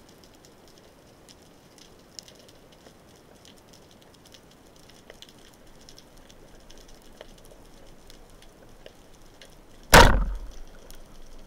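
Underwater, faint hiss with scattered small clicks, then about ten seconds in a single loud, sharp crack as a rubber-band speargun fires and the shaft strikes a fish.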